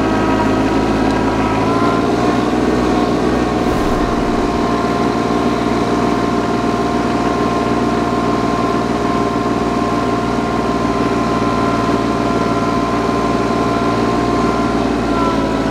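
Compact diesel tractor engine running steadily under light load as the tractor drives along pulling a 3-point sprayer; the engine note steps up slightly about two seconds in.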